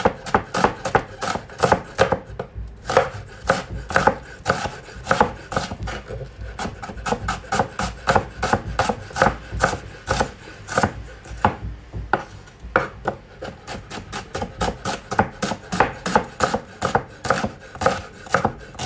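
Chef's knife slicing an onion on a wooden cutting board: a steady run of quick knife strikes on the board, about three or four a second, with a short pause near the middle.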